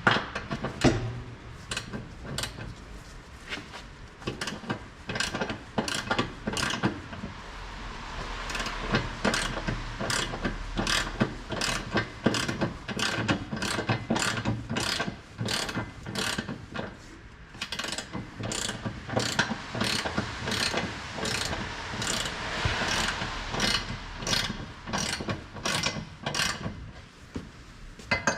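Hand ratchet wrench with a socket clicking in a steady run of strokes, about two to three clicks a second with a couple of short pauses, as bolts are turned.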